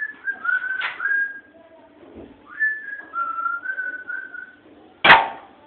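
A person whistling a short melody in two phrases, then a single sharp air gun shot about five seconds in.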